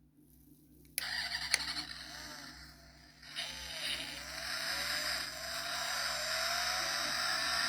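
A car engine sound cuts in suddenly with a click about a second in and revs, its pitch gliding up and down and the level building toward the end.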